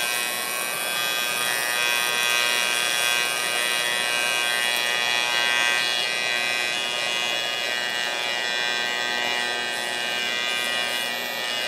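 AC TIG welding arc from a Miller 220 multiprocess welder, buzzing steadily as it is run slowly around a weld on a cast aluminum oil pan. It sputters because the casting is full of contamination.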